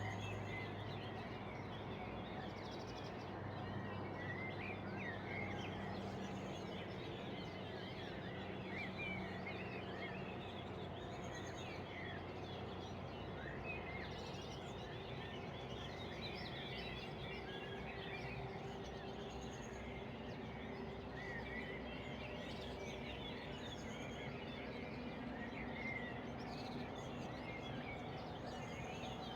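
Many birds chirping at once, short high calls scattered throughout over a steady background hiss, with a low hum that fades out about ten seconds in.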